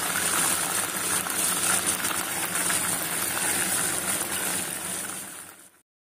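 Hot oil sizzling steadily as green chillies and curry leaves deep-fry in a kadai. The sizzle fades and cuts off abruptly near the end.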